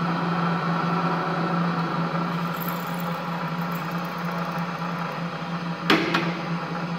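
Super Condor Typ 20 22 pillar drill running free with a steady hum from its electric motor and spindle drive. About six seconds in, two sharp knocks come as the feed lever is let go and the quill springs back up.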